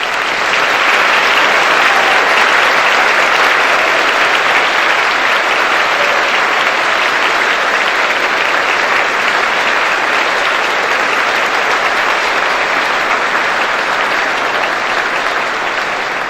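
Audience applauding steadily in a large hall for veterans and service members standing to be recognised, easing off slightly near the end.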